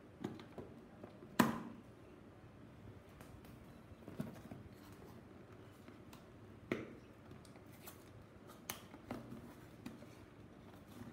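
A cardboard phone box being handled and its tear tab worked open: scattered sharp clicks and taps of fingers and paperboard with light rustling between them. The loudest snap comes about a second and a half in.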